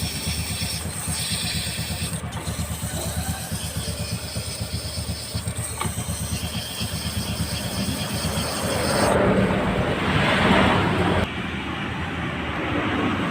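A scooter engine runs steadily while sandpaper rasps against the spinning clutch bell (mangkok ganda) to smooth its grooved, worn friction surface, the cause of judder when pulling away. The scraping grows louder about nine to eleven seconds in.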